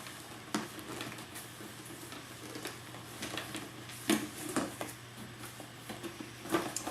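Cardboard packaging being cut open and handled: a few scattered clicks and knocks with soft rustling in between, over a faint steady hum.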